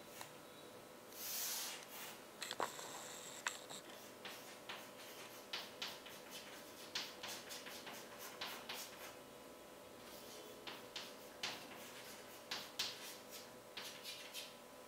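Chalk writing on a chalkboard: a longer scratching stroke about a second in, then many quick taps and short scratches as letters are written. Faint, over a steady low hum.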